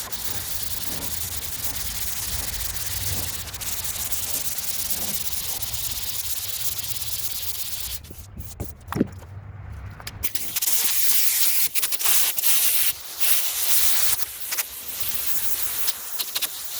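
Sandpaper on a long sanding block scraping back and forth over a primed steel hood during block sanding. It is steady for the first several seconds, breaks off with a single knock, then carries on as choppier, uneven strokes.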